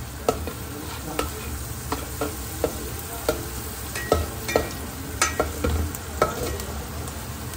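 Chillies sizzling as they fry in oil in a pan, stirred with a utensil that knocks and clinks against the pan about a dozen times at an irregular pace.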